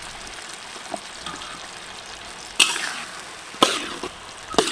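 Diced green beans and carrots sizzle steadily in a large metal wok. A little past halfway a metal spatula starts stirring, scraping loudly against the wok three times, about a second apart.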